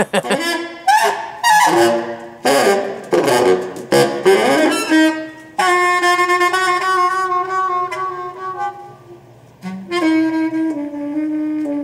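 Saxophone playing: a quick run of short notes with slides between them, then long held notes, the last one stepping down in pitch near the end.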